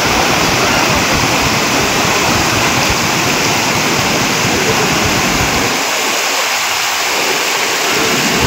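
Fast brown floodwater rushing through a breach in a road embankment: a loud, steady noise of turbulent water.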